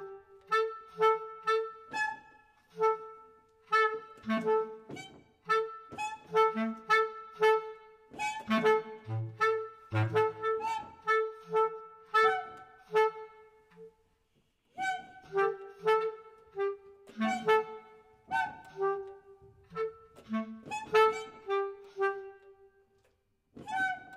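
Two bass clarinets playing short, sharply tongued notes, mostly repeating one pitch with a few others, in irregular staccato phrases. The phrases break off briefly about fourteen seconds in and again near the end.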